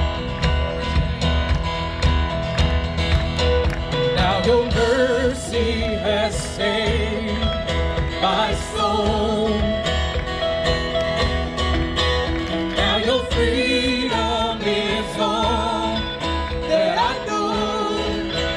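Live worship band music: sustained chords over a pulsing bass, with a wavering melodic lead line that enters about four seconds in.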